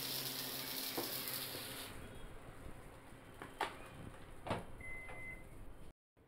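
Dosa batter sizzling on a hot tawa as it is spread, cutting off about two seconds in. After that come a few light knocks and clicks.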